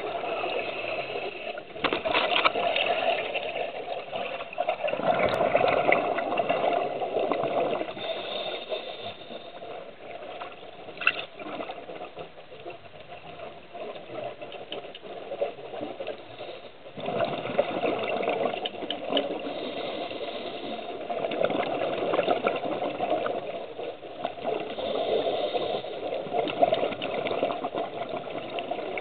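Scuba diver breathing through a regulator underwater: exhaust bubbles bubbling out in long spells of noise, with a quieter stretch in the middle.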